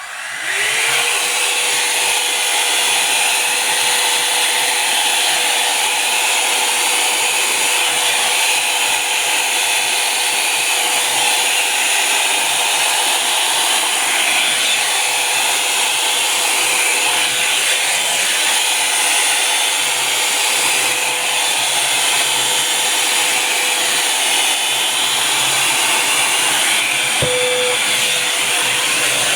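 Revlon Volumizer Plus hot-air brush dryer switched on at its medium setting: its motor whine rises to pitch in the first second, then it runs with a steady rush of air and an even motor whine. A brief click near the end.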